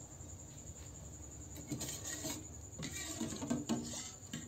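A ladle scraping and knocking softly in a pot of simmering shrimp stock as it scoops out the heads and shells, starting about a second and a half in. Crickets trill steadily in the background.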